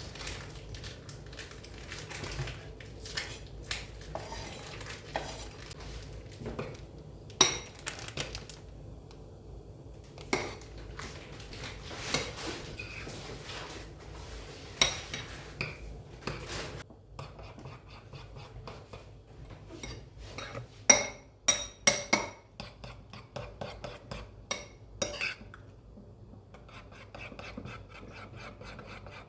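Cookware and cutlery clinking and knocking during cooking: scattered sharp clinks and knocks, with a quick cluster of the loudest ones about three quarters of the way through. Near the end a faint, even run of short scraping strokes starts.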